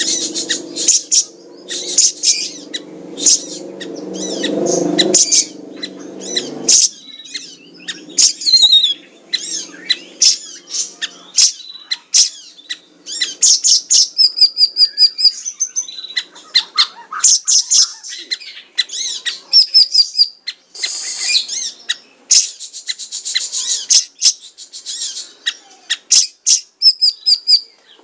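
Caged siri-siri bird singing a fast, dense song of sharp high chirps, rapid trills and short whistled notes, in quick phrases with brief gaps. A low drone hums underneath for the first several seconds and stops about seven seconds in.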